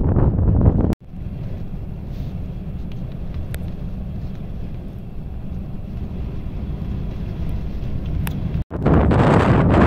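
Low rumbling wind noise on the microphone, with no distinct events. It cuts off abruptly about a second in and returns quieter and steadier, then cuts again near the end and comes back louder.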